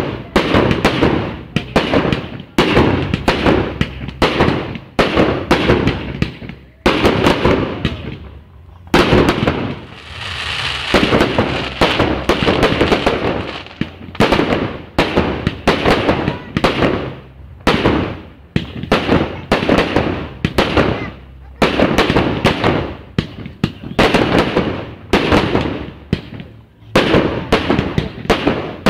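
Fireworks display: a rapid series of aerial shell bursts, about two bangs a second, each trailing off, with a stretch of hissing about a third of the way through.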